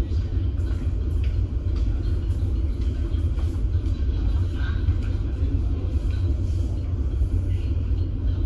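Steady low rumble of a ferry's engines, heard on deck.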